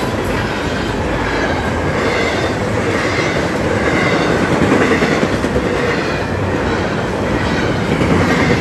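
Long intermodal freight train of empty container well cars rolling past at speed, a steady rush of wheels rumbling and clicking over the rails.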